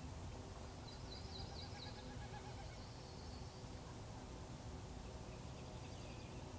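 A small songbird singing faintly in the background: a quick trill of rapid high notes about a second in, and a fainter one near the end, over a steady low background rumble.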